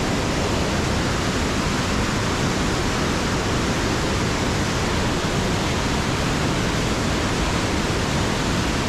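Fast whitewater river rushing through rapids just below: a steady, even rush of water with no breaks.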